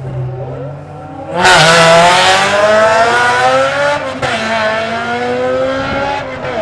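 Supercharged 2.0-litre VTEC four-cylinder of a 1997 Honda Del Sol holding revs at the drag-strip start line, then launching hard about a second and a half in and revving up steadily. About four seconds in the pitch breaks and drops at a gear change, then climbs again as the car pulls away.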